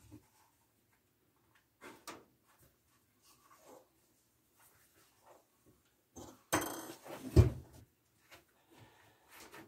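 Leather straps and a wooden stirrup handled on a wooden workbench: soft rustles and taps, then a louder clatter ending in a thump a little past halfway as the stirrup is laid down flat on the bench.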